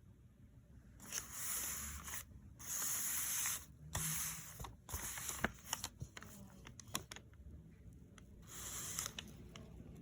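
Paper being handled: four short scraping, rustling bursts, with a run of small sharp clicks in the middle.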